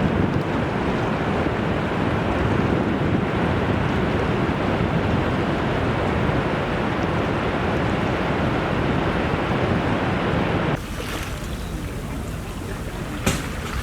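Ocean waves and surf with wind buffeting the microphone, a steady dense rush. About eleven seconds in it cuts abruptly to a quieter, hissier recording of waves, with a brief sharp click near the end.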